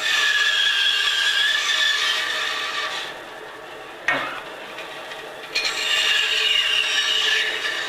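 Bandsaw cutting through a wooden leg blank in two passes of about three and two seconds, with the blade's steady whine over the cut, and a single sharp click in the gap between them.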